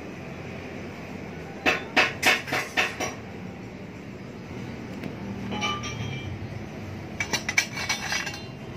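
Stainless-steel exhaust header pipes clinking against each other as they are handled. There is a quick run of clinks about two seconds in, a brief ringing note midway, and another run of clinks near the end.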